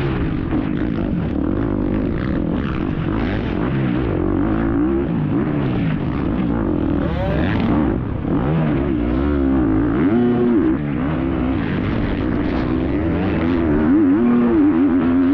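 Off-road racing motorcycle's engine heard from on board the bike, revving up and down without a break as the throttle opens and closes and the gears change.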